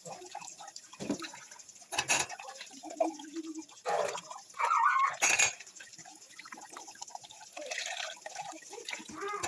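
Dishes being washed by hand at a kitchen sink: water running and dripping, with dishes and utensils knocking and clattering several times.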